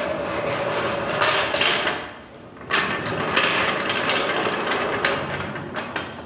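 Metal rattling and scraping of a floor jack being handled, in two long stretches with a short pause between.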